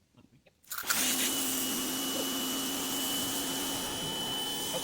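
Pressure washer starting up under a second in and then running steadily: a loud, even hiss with a steady high whine on top.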